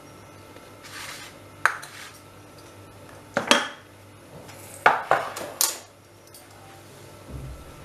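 Metal kitchen utensils and pots clinking and clattering as they are handled: a single clink, then two short clusters of knocks, with quiet stretches between them.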